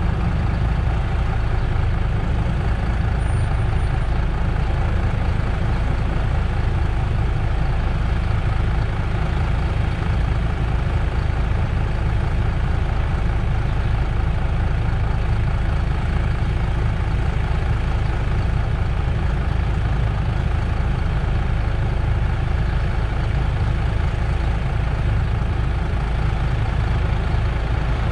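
MAN Lion's City GL articulated bus's diesel engine idling steadily, heard from outside the bus.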